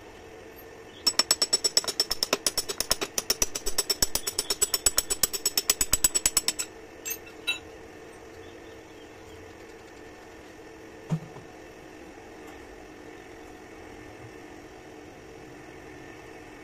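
Rapid, evenly spaced metallic clicking, about seven clicks a second for some five seconds, from hand work on a lathe's top-slide fitting. Two lighter clicks and a single knock follow.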